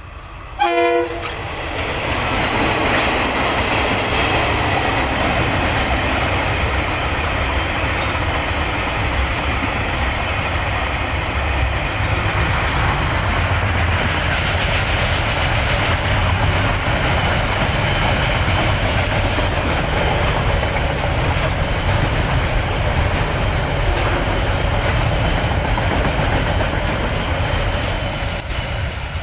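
A KiwiRail freight train gives a short horn blast about a second in, then passes close by: a long steady rumble of the locomotives and wagons rolling on the rails, easing off near the end.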